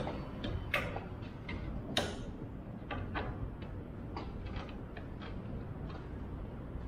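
Irregular small clicks and taps of hands handling parts on a motorcycle's fuel tank, two sharper clicks about one and two seconds in.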